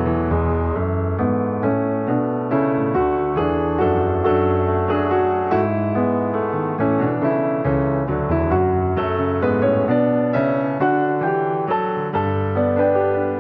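Background piano music: a gentle flow of struck notes and chords at a steady pace.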